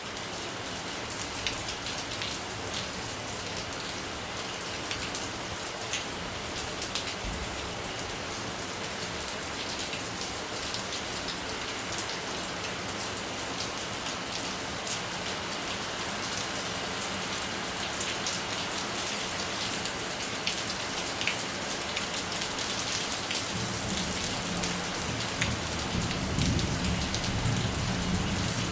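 Heavy rain falling steadily, with many individual drops tapping on a surface. In the last few seconds a low rumble builds up under the rain.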